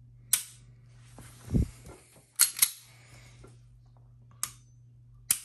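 Sharp metallic clicks from the trigger mechanism of a Walther Q5 Steel Frame pistol with an Overwatch Tac trigger and Walther Dynamic sear being dry-fired and let out to reset, about five clicks including two in quick succession midway. A dull knock of handling the pistol is heard about a second and a half in.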